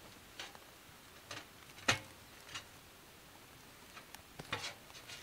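Scattered light clicks and knocks, like small objects being handled, about six at irregular intervals with the sharpest about two seconds in.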